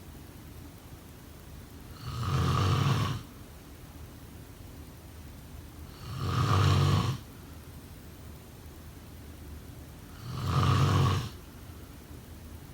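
A person snoring: three snores about four seconds apart, each about a second long and deep.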